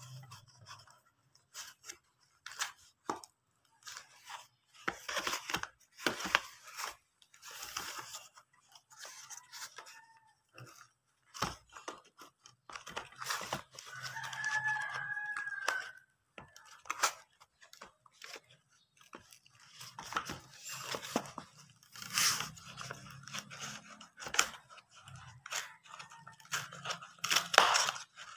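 Cardboard shipping box being handled and opened by hand: irregular rubbing, scraping and tapping on the cardboard, getting busier near the end as the flaps are pulled and torn open.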